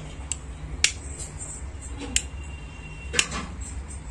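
Four sharp plastic clicks and taps from hands working on an opened extension board's wiring and switch, over a steady low hum.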